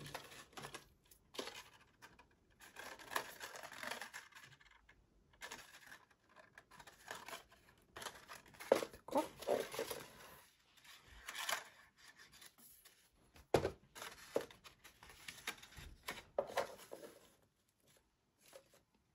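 Paper rustling and crackling in irregular bursts as a scored sheet is folded and creased by hand into a small box, with a sharp tap a little past the middle.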